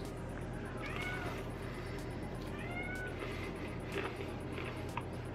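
Domestic cat meowing a few times in short, rising-and-falling calls, begging for the food being eaten. A steady low hum runs underneath.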